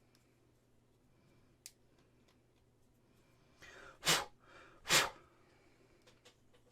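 Two short, forceful bursts of a person's breath, about a second apart, with a faint click before them.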